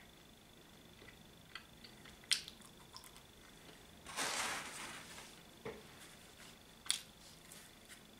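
Mushroom and cheese pizza being eaten: scattered small mouth and lip clicks while chewing, and about four seconds in a short rustle as another slice is picked up off to the side, followed by a sharp click as it is bitten. A faint steady high whine runs underneath.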